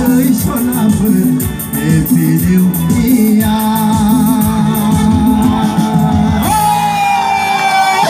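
Live band music with a singer over the stage PA: a steady drum beat under sustained low chords, with long held sung notes in the second half.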